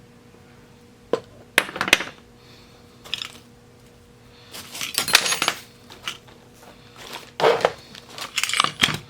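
Small metal sewing machine parts clinking and rattling as they are handled and set down, in several separate bursts of clatter.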